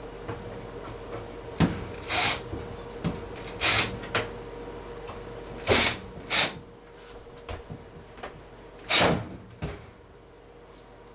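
Hand work on a washer door hinge with a screwdriver and metal parts: a series of sharp clicks, knocks and short scrapes, with a faint steady hum underneath that stops near the end.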